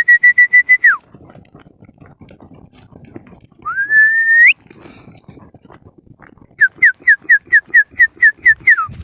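A person whistling to call animals: a quick pulsing whistle at the start, a single long whistle that slides up about four seconds in, then a run of about ten short falling whistle notes near the end.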